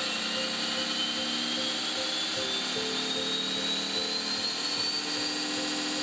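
Servonaut SMX model-car soundboard playing its simulated engine sound through a small speaker, revving higher as the RPM signal is raised, with a whine that climbs steadily in pitch.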